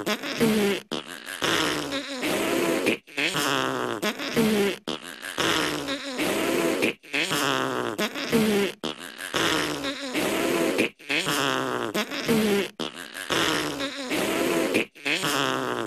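Blown raspberries: buzzing lip trills with a wavering pitch, the same short burst repeating about every two seconds as the clip loops.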